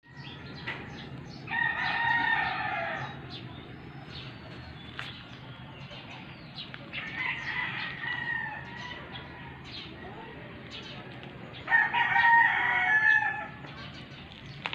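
Rooster crowing three times, each crow about a second and a half long, over a faint steady low hum.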